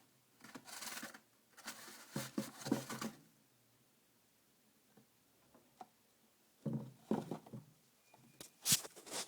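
Chinchilla digging and rolling in dust-bath dust inside its dust house: bursts of scratchy rustling with a quiet pause in the middle and a sharp tap near the end.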